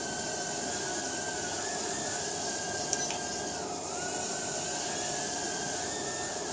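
Eachine E010 tiny-whoop micro quadcopter hovering, its four brushed coreless motors and ducted props giving a steady high whine whose pitch wavers up and down as the throttle changes, dipping most about four seconds in. A brief click about three seconds in.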